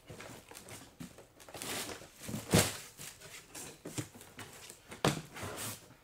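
Cardboard packaging being handled as a large box is opened: scraping and rustling of cardboard, with a loud bump about two and a half seconds in and another around five seconds.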